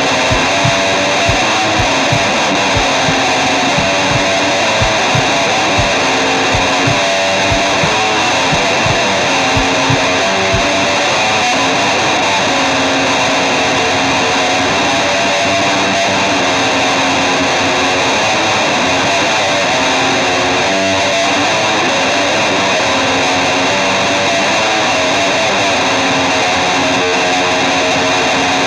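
Music with loud, distorted electric guitar forming a dense, sustained wall of sound. A low, regular drum beat runs through about the first ten seconds, then drops out, leaving the guitar droning on alone.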